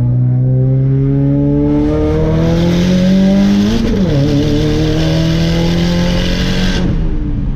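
Subaru boxer engine accelerating hard under full throttle, rising in pitch through a gear, with a quick upshift about four seconds in, then climbing again until the throttle lifts near the end. It pulls cleanly without cutting out, after new spark plugs cured a misfire.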